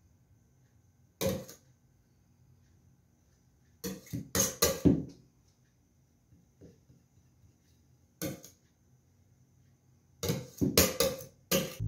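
Metal icing spatula scraping and clinking against metal while whipped cream is smoothed onto a cake: one short scrape about a second in, a quick run of them around four seconds, one more around eight seconds and another quick run near the end.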